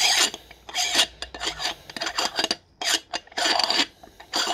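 Rasping, scraping strokes as the screw-on base of a Dilaw Turtle X Carbon shisha is twisted by hand on its threads. There are about six short strokes, one every half second to second.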